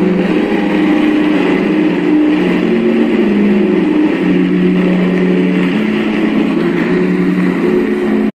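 Low droning chant of male voices, held notes that shift in pitch every second or so, over a steady hiss.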